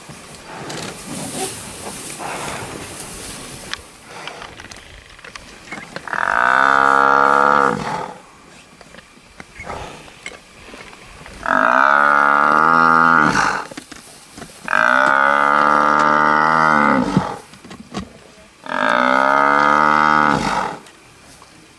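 Cape buffalo bellowing in distress while lions attack it: four long, loud bellows of about two seconds each, starting about six seconds in, with quieter scuffling noise between them.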